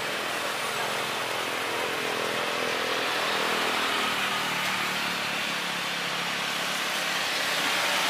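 Jet engines of a Boeing 737 Next Generation (CFM56-7B) heard from a distance during the landing rollout: a steady rush, with a hum falling in pitch over the first few seconds as the engines wind down.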